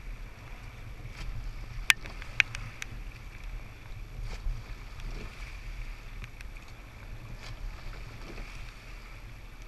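Rowing eight under way: water rushing along the hull and off the blades, with wind buffeting the microphone as a steady low rumble. A few sharp clicks from the oars turning in their gates, the loudest two close together about two seconds in.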